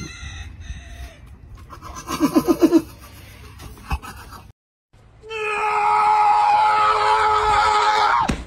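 A horse nickering, a short pulsing rumble about two seconds in. After a brief break comes a louder, steady, high-pitched sound of several held tones that lasts about three seconds.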